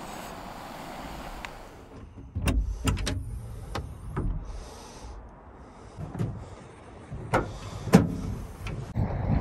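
Propane fire pit flames hissing steadily for about two seconds. Then comes a string of irregular knocks and heavy thumps from someone moving about inside a pickup's truck-bed canopy, the loudest near the end.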